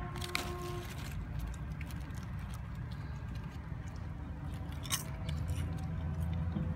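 Someone chewing popcorn, a few crunches and clicks, over a steady low rumble of street traffic; a vehicle's engine grows louder near the end.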